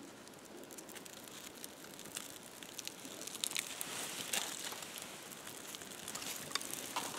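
Birch bark being handled and crinkled, then catching fire and crackling as it burns, with many small sharp pops that are busiest a few seconds in.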